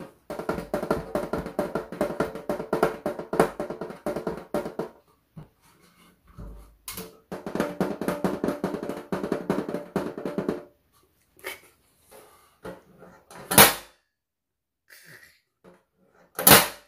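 Fingers rapidly drumming and tapping on a thin aluminium tray table, the sheet metal ringing with steady tones under the taps, in two long runs. Then a few scattered clicks and two loud, sharp metal clacks near the end at the table's folding-leg hinges.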